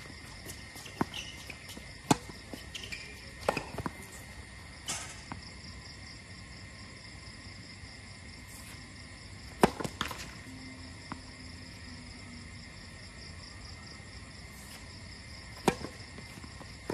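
Tennis balls struck by racquets and bouncing on a hard court: scattered sharp pops, the loudest about two and nine and a half seconds in, over a steady high chirping of insects.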